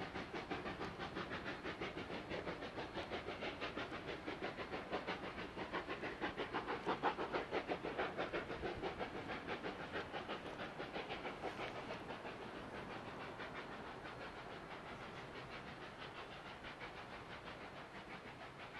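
Faint, steady rapid chuffing of narrow-gauge K36 2-8-2 steam locomotive No. 484's exhaust as it works a passenger train, about four or five beats a second. The beat is loudest about seven seconds in and then fades as the train draws away.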